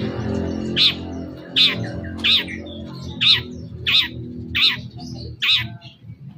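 Long-tailed shrike (cendet) giving a harsh, repeated call: seven short notes, each falling sharply in pitch, about one every three-quarters of a second.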